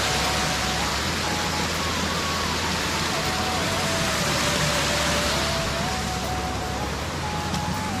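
Fast-flowing river water rushing, a steady loud hiss that eases slightly near the end, with a faint single-line melody of music wandering over it.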